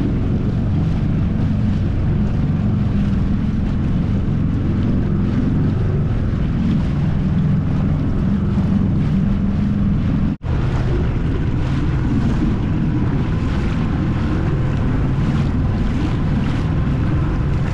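Small boat under way on open water: a steady, loud low rumble with wind buffeting the microphone. It drops out for an instant about ten seconds in, then carries on.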